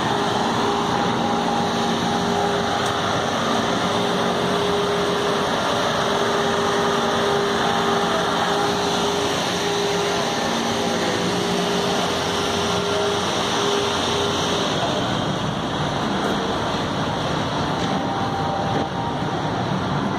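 Steady mechanical running noise of a motor or machine, with a steady hum that stops about fifteen seconds in, over general street noise.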